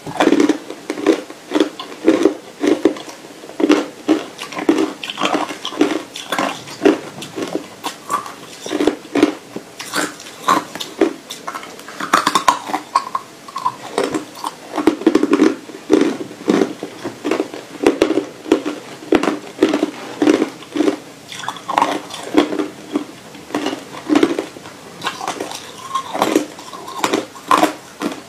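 Hard crushed ice crunched and chewed between the teeth, steady crisp crunches at about two a second, close to a clip-on microphone.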